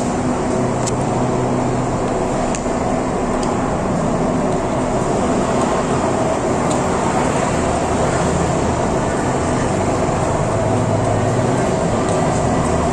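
Steady vehicle noise in an underground car park: car engines running, with a faint low hum and a few light ticks.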